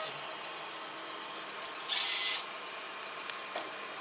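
Brass wire brush scraping across a 3D printer's hot nozzle, one short scratchy hiss about half a second long about two seconds in, with a few faint clicks around it.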